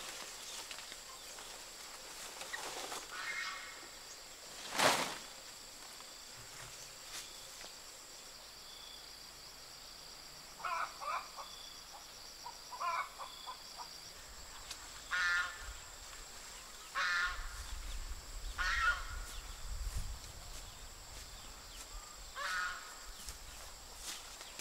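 Farm poultry calling outdoors: short calls, each under a second, repeated about every second or two through the second half. A single sharp crack about five seconds in is the loudest sound, and a steady high-pitched tone runs underneath.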